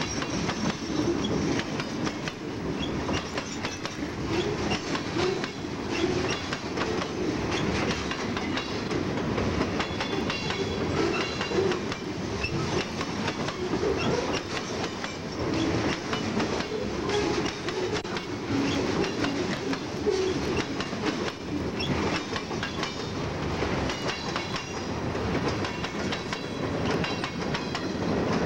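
Close-up freight train cars, mostly covered hoppers, rolling steadily past at about 29 mph. Their steel wheels rumble on the rail with a continual irregular clicking and clatter as the wheels cross rail joints and the cars rattle.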